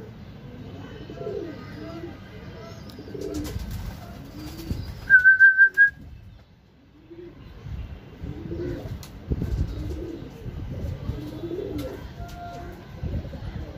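Domestic pigeons cooing, with low rising and falling coos repeating throughout. About five seconds in, a loud, high warbling tone sounds for under a second in four quick pulses.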